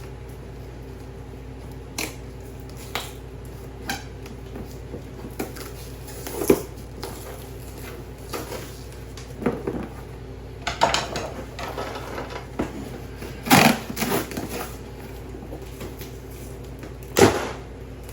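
Parts of a deer feeder cage being handled: scattered knocks, clinks and rustles, busiest about halfway through, with the loudest knocks a little later and near the end, over a steady low hum.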